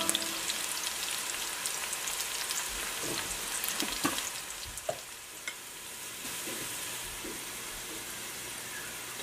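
Sliced onions frying in oil in a metal wok: a steady sizzle with scattered small crackles, easing a little about halfway through.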